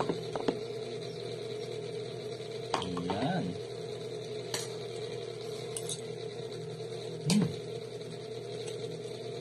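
Scattered light clinks and taps of a plate and dish as a man eats a meal of rice and adobo, over a steady background hum. A brief voiced murmur comes about three seconds in and again, louder, just past seven seconds.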